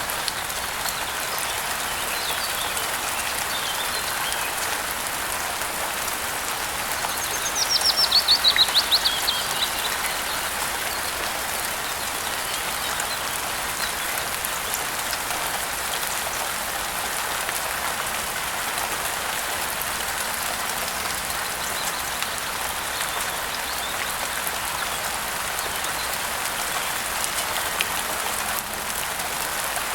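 Steady rainfall hissing throughout. About a quarter of the way in, a bird gives a fast trill of rapid notes falling in pitch, the loudest sound here, with a few faint chirps before it.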